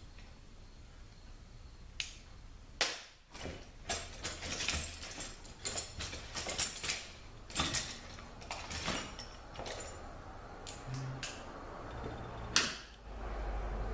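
Hand tools and metal transmission parts clicking and knocking as they are handled on a workbench, in irregular light taps with a louder knock near the end.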